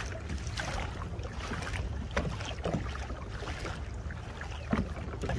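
Water splashing and lapping against a moving kayak's hull in irregular small slaps, over steady wind noise on the microphone.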